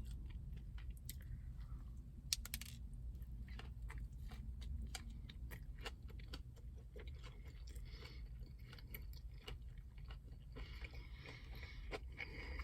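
Close-up chewing of a Big Mac: soft, wet clicks and crunches of mouthfuls being chewed, with one sharper click a little over two seconds in and two stretches of soft hiss later on.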